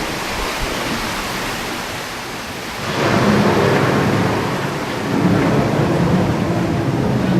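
Steady hiss of rain, then about three seconds in a loud rumble of thunder swells up and rolls on, growing again about five seconds in.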